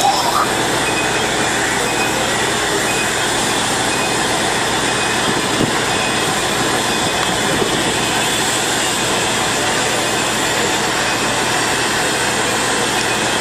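Heavy construction machinery running steadily: the diesel engine of a crawler crane holding a tunnel boring machine section on its hook. A constant, even noise with a few faint steady tones.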